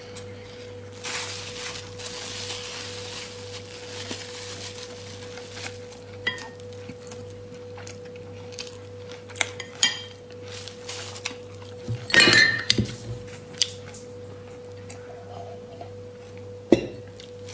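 Close-up eating sounds as a flatbread wrap with meat is bitten and chewed, with scattered sharp clicks and clinks, the loudest cluster about twelve seconds in, over a steady hum.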